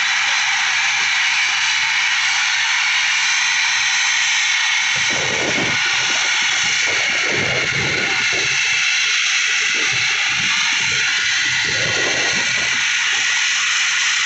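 Helicopter running on the ground with its rotors turning: a loud, steady rush of turbine and rotor noise. Uneven low rumbling joins it from about five seconds in.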